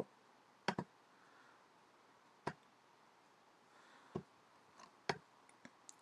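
Computer mouse clicking: a handful of short single clicks at uneven intervals, two close together near the start.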